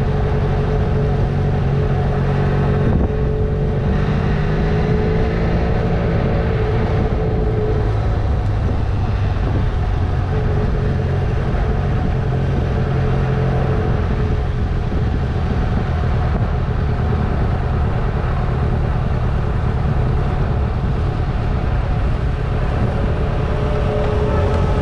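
Honda CMX 500's parallel-twin engine running steadily while riding, with small drifts in pitch, over a steady rush of wind and road noise.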